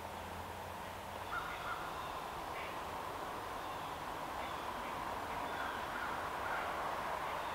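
Crows cawing faintly in the distance, a few scattered calls over the steady background of the woods.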